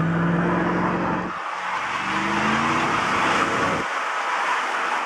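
Car doing a burnout: the engine runs at high revs under a loud, continuous tyre squeal. The engine note breaks about a second and a half in, then climbs again.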